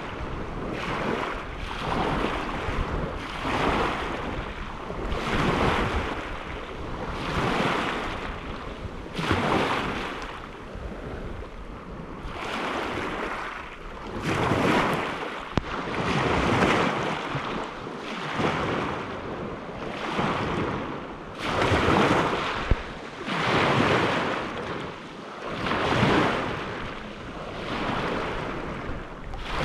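Small lake waves breaking and washing on the shore, one after another about every two seconds, each swelling and fading, with some wind on the microphone.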